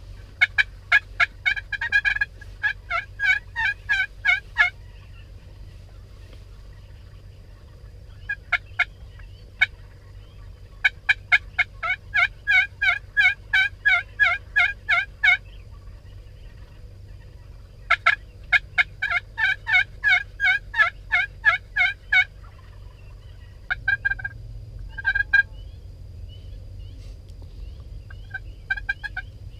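Wild turkeys calling: several long runs of rapid, evenly spaced notes, about four or five a second, with shorter, fainter runs near the end.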